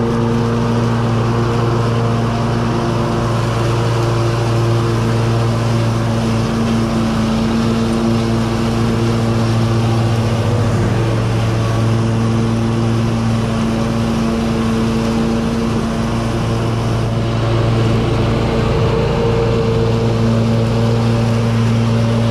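Gravely 52-inch zero-turn riding mower running with its blades engaged, mowing tall grass: a steady engine tone that dips in pitch briefly about halfway through, then recovers.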